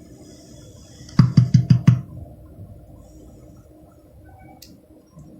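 About five quick, low thumps in under a second, heard through a dynamic microphone under test over a faint steady hum.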